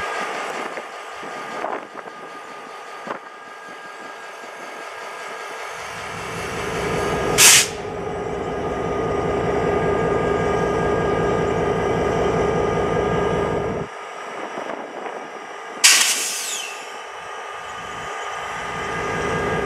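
Diesel-electric locomotive idling at a standstill, its engine swelling louder for several seconds midway. Two sharp, loud bursts of air hiss about eight seconds apart, typical of air brakes venting during a brake test, the second with a brief falling squeal.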